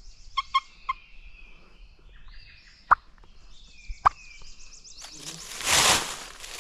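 Songbirds trilling in spring woods, with three short clipped call notes about half a second in and two sharp clicks a little over a second apart around the middle. A rushing swell of noise comes up near the end.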